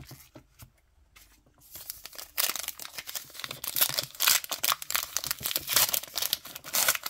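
A trading-card pack wrapper being torn open and crinkled, a dense crackling that starts about two seconds in after a few faint clicks and keeps going.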